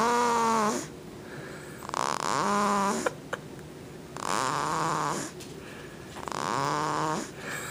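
A two-month-old snoring in sleep: four pitched snores, each about a second long and falling slightly in pitch, about every two seconds. The snoring is put down to the way she is sitting.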